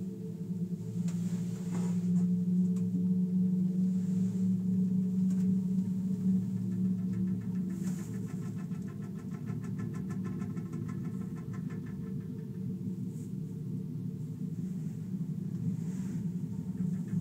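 Panoramic Mont-Blanc gondola cabin running along its cable: a steady low hum and rumble, with a run of rapid, regular clicking through the middle.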